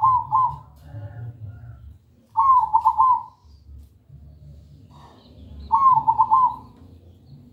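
Caged zebra dove (perkutut) cooing its song: two full phrases about three seconds apart, each a drawn-out first note followed by a quick run of three or four coos, with the end of an earlier phrase just at the start. A faint low rumble runs underneath.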